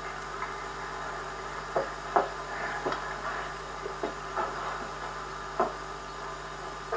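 Steady hiss of an old camcorder tape with about half a dozen light, scattered knocks and taps, the loudest about two seconds in.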